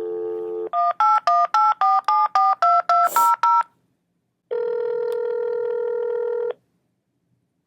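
Telephone call being placed: a steady dial tone, then a quick run of about eleven touch-tone (DTMF) key beeps as the number is dialled, then one ringback tone about two seconds long as the line rings at the other end.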